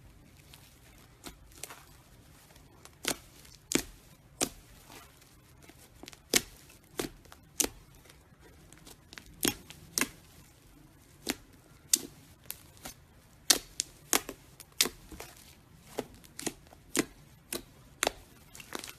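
Slime being squeezed and poked by hand, giving irregular sharp clicking pops, roughly one or two a second.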